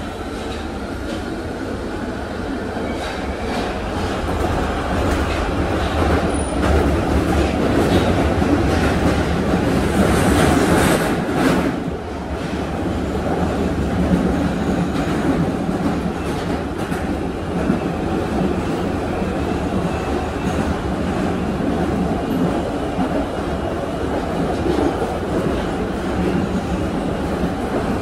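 London Underground Central Line train (1992 Stock) running, heard from inside the carriage: a steady rumble and rush of wheels on rails with some clatter. A faint whine rises near the start, and the noise grows briefly louder about ten seconds in before easing back.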